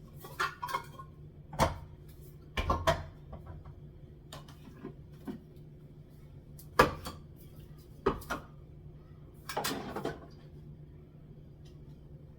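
Scattered knocks and clatters of kitchen items such as jars, cans and packets being handled and set down on cupboard shelves, the sharpest knock about seven seconds in.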